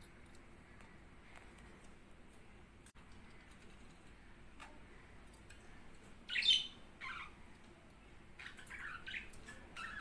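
Budgerigar chirping and squawking in short bursts: first a loud call a little past halfway with a second just after, then a cluster of several quick chirps near the end.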